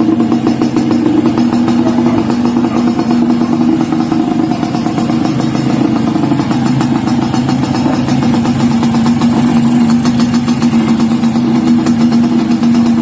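A 1987 Suzuki X3 motorcycle's engine running steadily at idle, its pitch holding level throughout.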